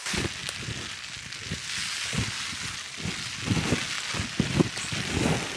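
Heavy rain coming down: a steady hiss with irregular low knocks of drops striking close by.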